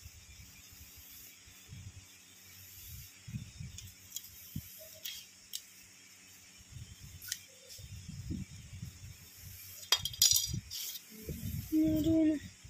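Light metallic clinks and taps of a geometry compass and ruler handled against a wall while a design is marked out, with a quick cluster of clinks about ten seconds in. Low rustling thumps of handling run underneath.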